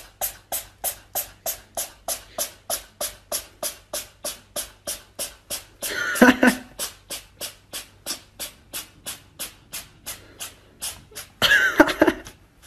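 A cat yowls loudly twice, about six seconds in and again near the end. Under the yowls runs an even series of short, sharp clicks, about three a second.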